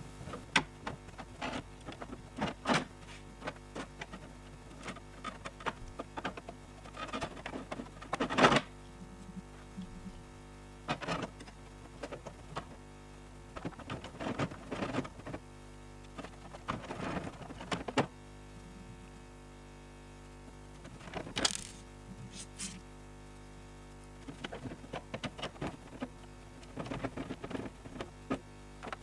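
Light clicks, taps and rattles of 3D-printed plastic model-plane parts being handled and fitted together on a tabletop, coming irregularly, with a brief burst of hiss about two-thirds of the way through.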